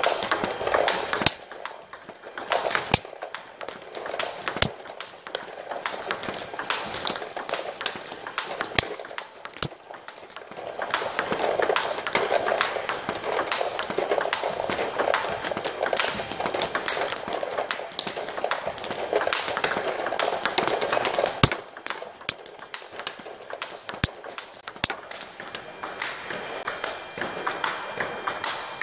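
Table tennis ball struck with a paddle and bouncing on the table in a forehand topspin drill: sharp clicks, the loudest every second or two, over a steady background murmur.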